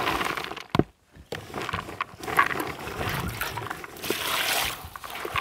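Pemuche (colorín) flowers being washed in a plastic basin: water pouring over them while a hand swishes and sloshes them about, splashing more strongly near the end. Right at the start the flowers slide out of a plastic colander into the basin, and there is a brief break about a second in.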